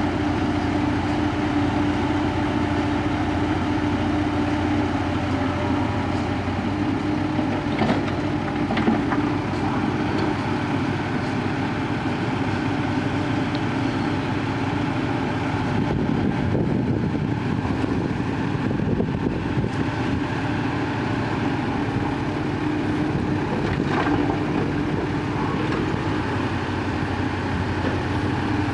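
Heavy diesel machinery, the engines of an excavator and dump trucks, running steadily, with two short knocks, one about eight seconds in and one late on.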